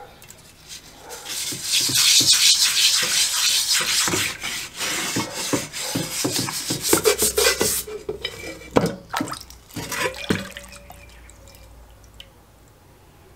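Wire brush scrubbing a rusty cast iron lid under water in a basin, bristles scratching with splashing and sloshing, broken by a few knocks. Near the end the lid is lifted out and water drips and trickles back into the basin.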